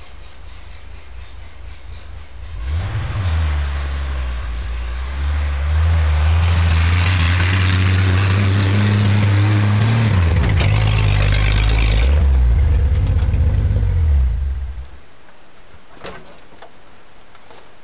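Small old truck's engine: it revs up, then runs loud and steady as the truck drives past with some changes in pitch. The sound drops off suddenly about three seconds before the end, followed by one short click.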